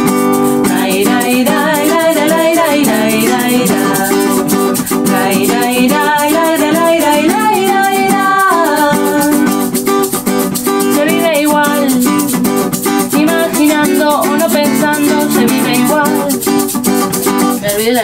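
Live acoustic music: a strummed guitar with a shaker keeping a steady rattle, and a voice carrying the melody in places. The music breaks off at the very end.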